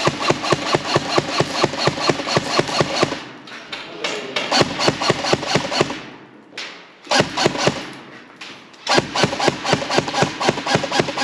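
Airsoft rifle firing on full auto, a fast even rattle of about eight shots a second, in four bursts with short pauses between them.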